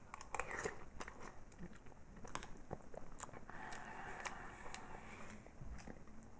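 Faint eating sounds: chewing, with light clicks of a metal spoon on a ceramic plate as it scoops up soggy bread in protein-powder soup.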